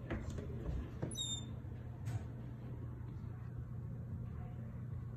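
Steady low hum with a few soft knocks, and one brief high squeak falling in pitch about a second in.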